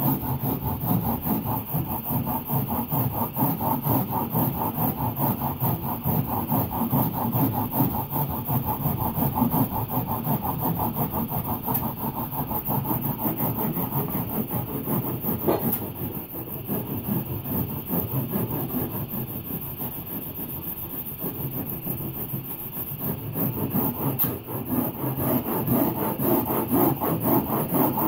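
Hand rasp scraping rigid blue foam in quick back-and-forth strokes, shaving it down a little at a time; the strokes go a little softer for a while past the middle.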